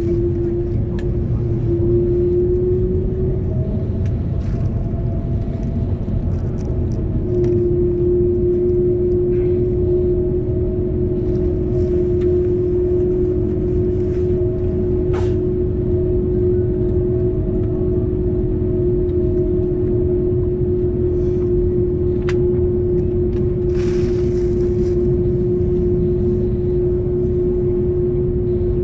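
Cabin noise inside an Airbus A330-300 airliner: a steady low rumble with a constant hum, and a few faint clicks and knocks along the way.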